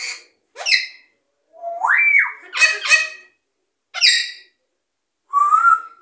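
African grey parrot calling: a string of about six short, harsh squawks and calls, with a clear rising whistle about two seconds in.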